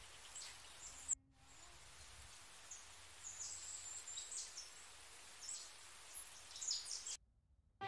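Outdoor park ambience: a soft background hiss with small birds chirping, short high calls that drop in pitch, repeated every second or so. A sharp click about a second in, and the sound cuts out to silence shortly before the end.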